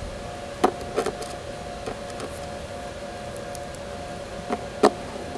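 A steady high hum of two close tones runs throughout. Over it come about five light, sharp clicks of small parts and tools being handled on a laptop's metal keyboard plate, the loudest about two-thirds of a second in and again near the end.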